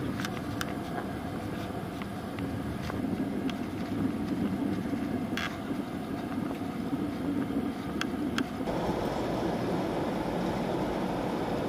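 Cabin noise of a jet airliner landing, heard from a window seat over the wing: a steady rush of engines and airflow with a few sharp clicks and rattles, touching down around the middle. About three-quarters of the way in the rush turns louder and harsher as the plane decelerates on the runway with its spoilers raised.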